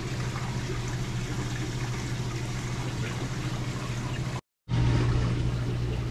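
Steady low hum with a wash of trickling water from saltwater aquarium pumps and filtration. The sound cuts out completely for a split second about four and a half seconds in.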